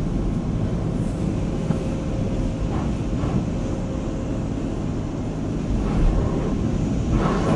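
Automatic tunnel car wash heard from inside the car: a steady rush of water spray on the car and the hum of the wash machinery, growing louder near the end.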